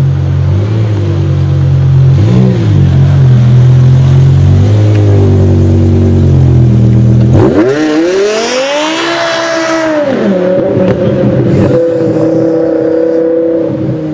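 Car engine running at low revs with a deep, steady note, then revving up sharply about halfway through: the pitch climbs steeply, holds high, drops back briefly and settles into a steady higher drone.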